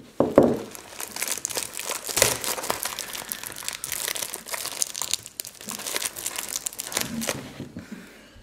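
Plastic shrink wrap being torn open and peeled off a cardboard booster box: a dense run of crinkling and crackling.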